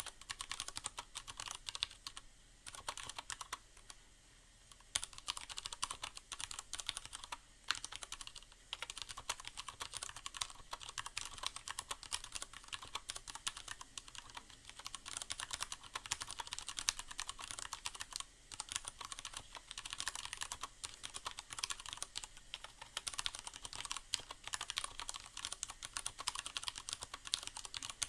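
Continuous typing on a Leopold FC750R mechanical keyboard with Cherry MX Brown switches: a dense, fast stream of keystroke clacks, with a short pause about four seconds in.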